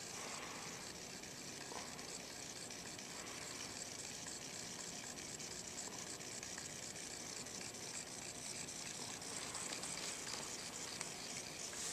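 Steady, faint hiss of room tone, with no distinct sound standing out.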